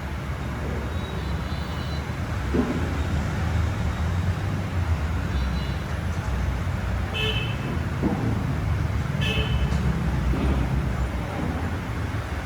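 Steady low rumble of road traffic, with a few short high tones over it.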